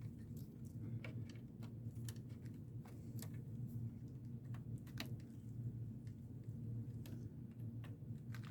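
Scattered light clicks and taps, about one or two a second, from small parts being handled during work inside an all-in-one computer, over a steady low hum.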